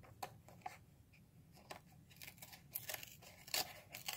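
Faint rustling and scattered small clicks of a diecast car's box and packaging being handled.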